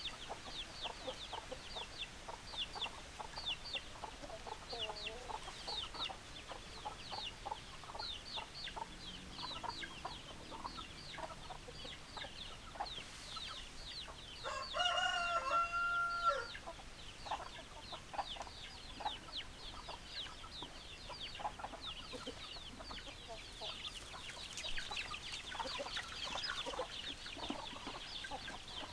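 Chickens: hens clucking, with a steady patter of high, rapid chirps throughout. About fifteen seconds in a rooster crows once, a held call that is the loudest sound.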